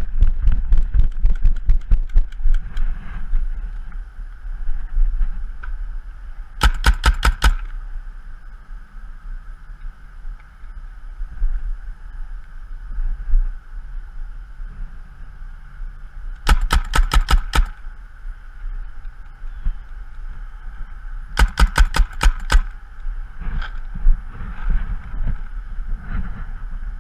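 Paintball markers firing in rapid strings of sharp pops, several shots a second, in four bursts: near the start, about 7 seconds in, about 17 seconds in and about 22 seconds in, with a few single shots between.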